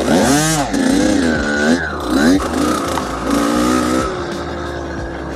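Dirt bike engine being ridden, its pitch rising and falling repeatedly with the throttle, then settling to a steadier note about four seconds in.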